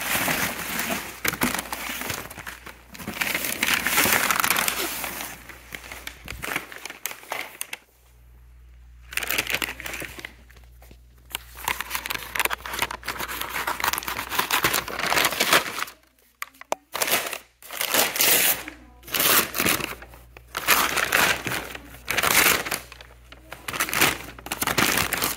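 Brown kraft packing paper and wrapping crinkling and rustling as a package is unpacked by hand, in uneven bursts with a couple of brief pauses.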